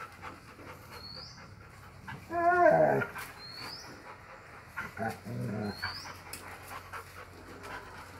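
Rottweiler vocalizing while playing: one loud, drawn-out whining call about two seconds in and a shorter, lower one around five seconds. A short rising high chirp repeats about every two seconds behind it.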